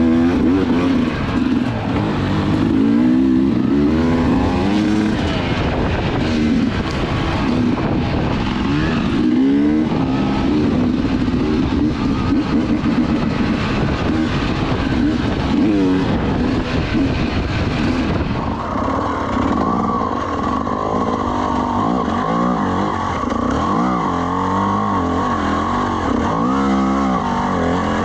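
Two-stroke dirt bike engine being ridden, revving up and down as the throttle is worked. About two-thirds of the way through, a steady high whine joins the engine note.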